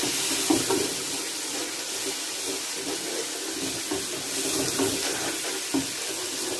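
Onion-tomato masala with ground spices sizzling in hot oil in a cooking pot, a steady hiss, while a wooden spoon stirs it and scrapes and taps against the pot a few times.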